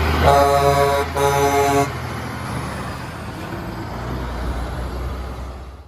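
Truck engine running steadily, with two horn blasts about a second in, each under a second long; the sound cuts off abruptly near the end.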